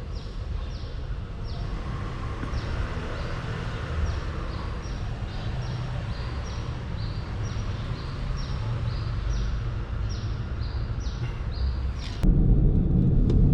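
Outdoor ambience with a steady low rumble and a short, high, falling chirp repeated two or three times a second. About twelve seconds in, the chirping stops and a louder low rumble takes over.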